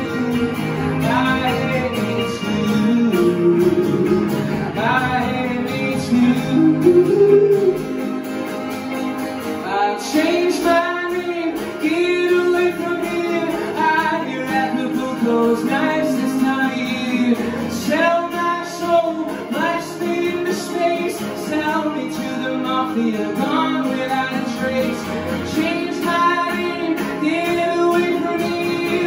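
Live acoustic and electric guitars playing a song, with a voice singing without words over them.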